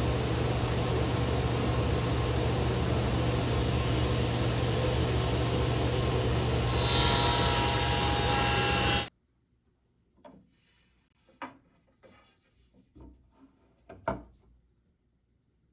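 CNC router spindle running steadily while its bit cuts wood, the cutting noise turning harsher about two-thirds of the way in, then cutting off suddenly. After it, a few light wooden knocks and taps.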